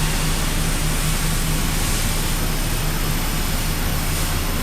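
Steady factory-floor drone: constant air and machinery noise with a low electrical hum underneath, no distinct strokes or impacts.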